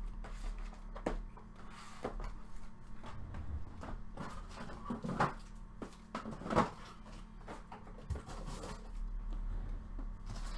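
Cardboard trading-card hobby boxes being handled and moved on a wooden desk: scattered light knocks and scuffs, the two loudest about five and six and a half seconds in, over a faint steady low hum.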